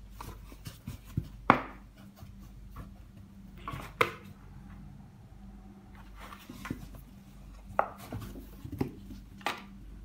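A cat and a kitten wrestling inside a cardboard box: irregular knocks, thumps and scratching of paws and bodies against the cardboard. The loudest knocks come about one and a half and four seconds in, with a cluster more near the end.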